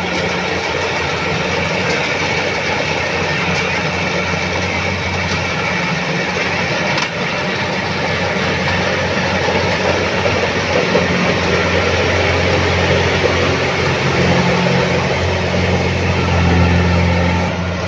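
Tracked combine harvester's engine running steadily with a low hum and dense mechanical clatter, growing a little louder past the halfway point and easing off near the end.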